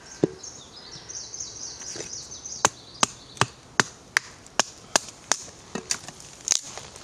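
Knife chopping through damp tree branches to split them in half: one sharp chop, then, from about two and a half seconds in, a steady run of about ten sharp chops, two or three a second.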